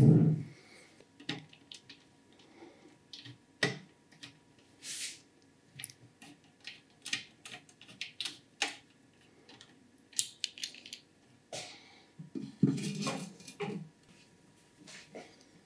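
Irregular clicks, taps and rustles of hands handling PC parts and cables while fitting the power supply into the case, with a heavier knock at the very start and a denser run of handling noise near the end.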